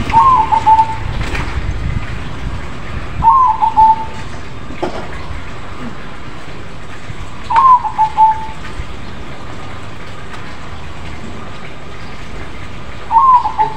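A crossbred zebra dove (perkutut) cooing. There are four short coo phrases a few seconds apart, each an opening note followed by a quick run of clipped notes.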